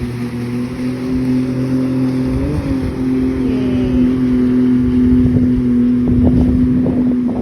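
A steady motor hum holding one even pitch, wavering briefly about two and a half seconds in, with rough low rumbling over it near the end.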